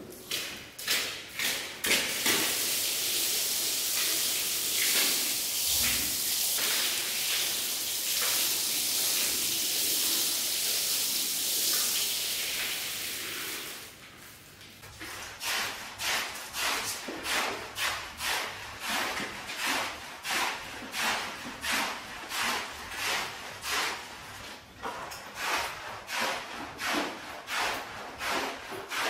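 Rug washing: a steady hiss of spraying water for about twelve seconds, then rhythmic scraping strokes across the wet rug, about one and a half a second.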